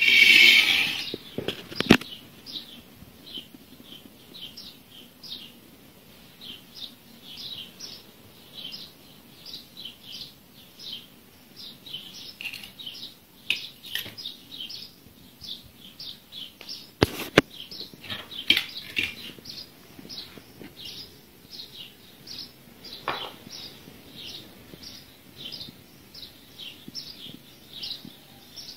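A bird chirping over and over, short chirps about twice a second. A loud burst of sound right at the start, and a few sharp clicks, two of them close together a little past the middle.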